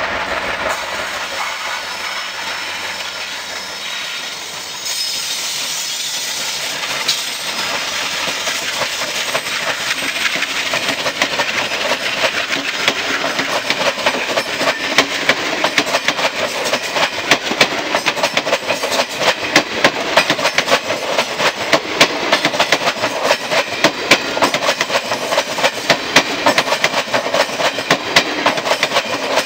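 Twin WDM3A ALCo diesel locomotives hauling an express train pass at speed, their engines humming for the first few seconds. Then the coaches rush by with a fast, steady clickety-clack of wheels over rail joints, growing louder toward the end.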